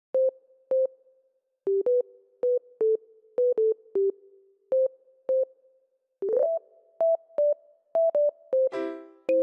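Background music: a simple synthesizer melody of short single notes, about two a second, with a sliding note partway through and fuller chords near the end.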